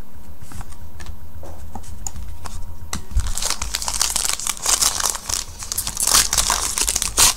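A trading-card pack wrapper crinkling and tearing as the pack is opened by hand, starting about three seconds in. Before that there are only a few faint clicks from cards being handled.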